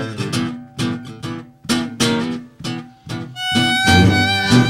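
Background acoustic string music: plucked guitar notes, then a violin melody of long held notes with vibrato comes in about three and a half seconds in.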